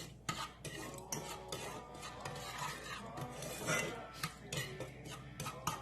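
A utensil stirring and scraping granulated sugar around a pan as it starts to melt: a gritty rasping with scattered light knocks against the pan.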